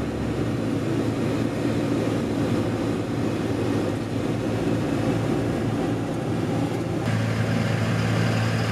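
Truck camper driving on the road: a steady engine hum with road and tyre noise. The sound changes abruptly about seven seconds in, the hum growing stronger and the hiss above it weaker.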